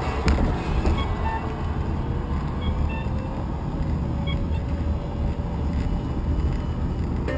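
Wind rumble and road noise on a moving camera's microphone, with faint music underneath.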